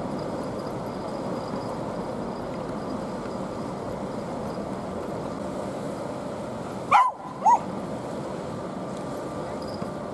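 A dog barks twice in quick succession, about half a second apart, over steady outdoor background noise.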